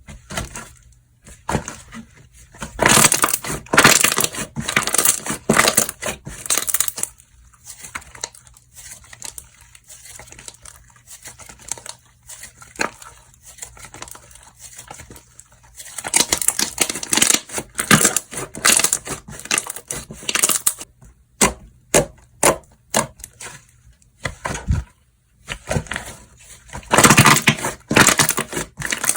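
Hands squishing, stretching and poking slime, giving dense crackling and popping clicks in three loud bouts, with softer scattered clicks in between.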